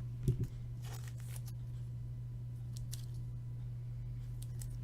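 Faint rustling of trading cards and pack wrappers being handled, with a soft knock near the start, over a steady low hum.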